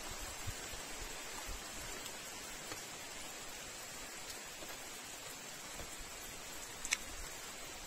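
Steady rain falling, an even hiss with a few faint ticks, and one sharp click about seven seconds in.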